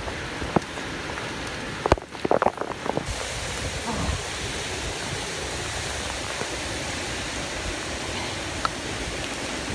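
Hurricane-force wind and heavy rain from the back eyewall of Hurricane Maria, a steady rushing noise. A few sharp knocks sound in the first three seconds.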